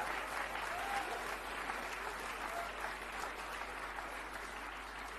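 A large seated audience applauding, an even clapping that eases off gradually toward the end.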